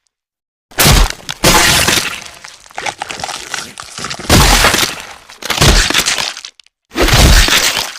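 Film gore sound effects of bone breaks combined with blood gushes: about five sudden cracking, crunching hits, each trailing off in crackling noise. The first comes about a second in, and there is a brief pause before the last.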